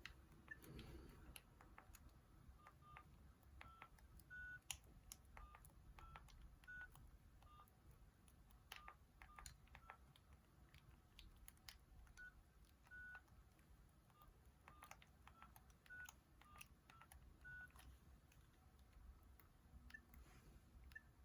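Nokia 6260 mobile phone playing a ringtone: a faint, simple melody of short beeping notes that step between a few high pitches, with small clicks among them.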